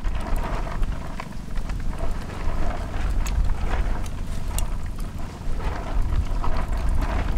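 Wind rumbling on the microphone over a small wood fire, with faint scattered crackles and ticks from the burning firewood, which is still damp.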